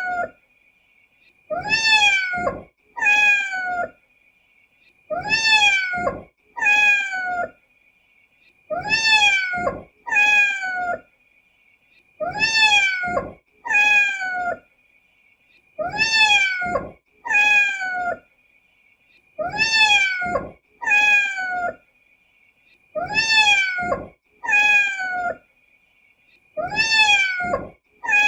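Domestic cat meowing in pairs: two meows about a second apart, each rising and then falling in pitch, with the pair coming back identically about every three and a half seconds as a loop. A faint steady high tone sits underneath.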